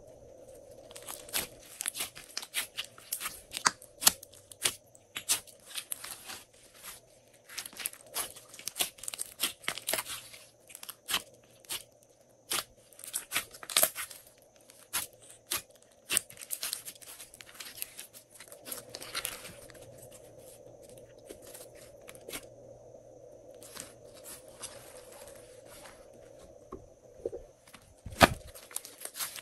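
Glossy slime being kneaded, folded and stretched by hand: sticky crackling and popping in irregular clusters with short pauses, and one louder thump near the end.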